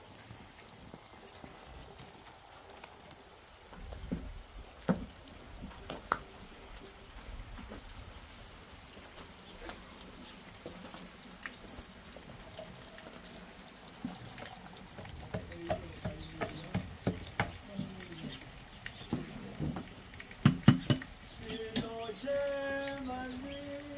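Faint rain patter at first, then a wooden pestle pounding inside a metal cup in a run of uneven knocks, loudest just before the end. A voice starts near the end, holding and stepping between pitches.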